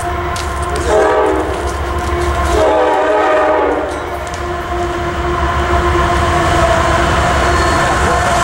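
Approaching CSX freight train, its lead GE AC4400CW locomotive sounding the air horn in long blasts, two of them standing out about one and two and a half seconds in, over the low rumble of the diesel engines.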